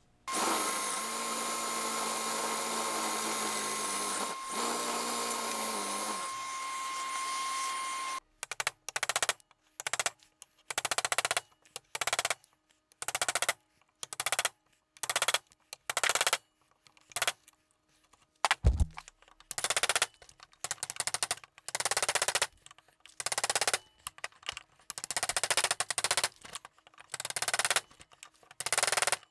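A power tool runs steadily for about eight seconds with a constant whine, then cuts off. It is followed by a rhythmic series of hand-tool strokes on wood, roughly one a second, each a short rasping scrape.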